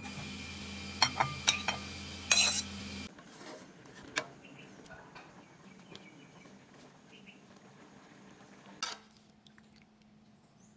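Utensils clinking against cookware several times, loudest about two seconds in, over a steady low hum that stops after about three seconds. Then quieter stirring in a wok of sauce with a wooden spatula, with an occasional knock.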